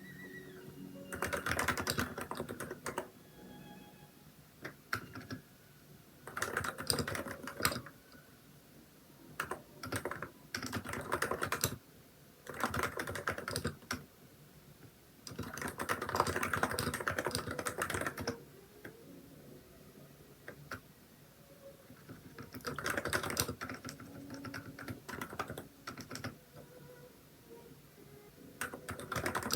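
Typing on a Hansung electro-capacitive keyboard with XDA keycaps, in bursts of rapid keystrokes a second or two long separated by short pauses.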